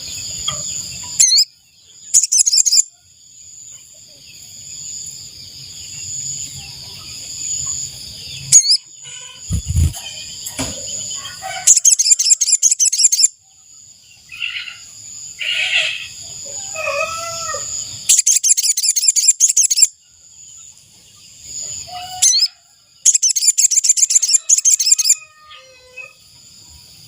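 Sogon bird (sogok ontong) calling: four loud bursts of rapid, high-pitched trilling, each lasting one to two seconds, with a steady high whine between them and a few lower chirps.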